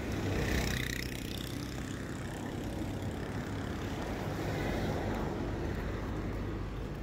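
Road traffic noise: vehicles running with a steady low rumble under a general street hiss.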